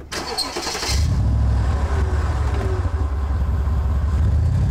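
Car engine started: a short noisy burst of cranking, then the engine catches about a second in and runs with a steady, deep rumble as the car pulls away.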